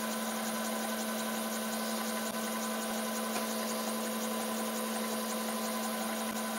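Bridgeport-style milling machine running with a 5 mm carbide end mill in the spindle: a steady hum that holds one pitch.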